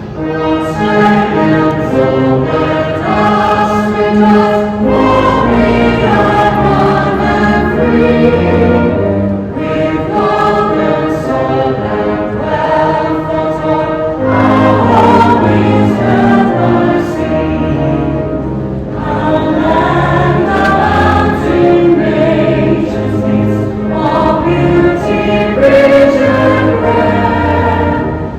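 A choir singing slow sustained phrases, each about five seconds long, over low held accompanying notes.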